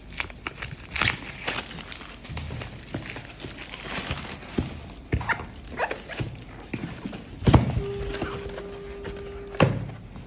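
Irregular clicks, knocks and rustles of gear being handled, with a loud knock about 7.5 seconds in. A steady tone sounds for about two seconds near the end and stops with another knock.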